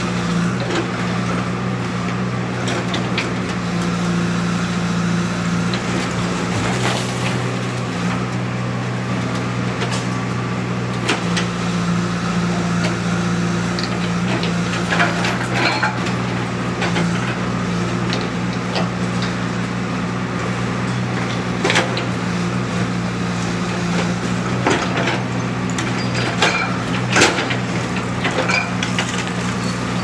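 Backhoe loader's engine running steadily while its bucket breaks down a brick wall, with bricks and rubble clattering and cracking down again and again, the sharpest cracks about two-thirds of the way in and near the end.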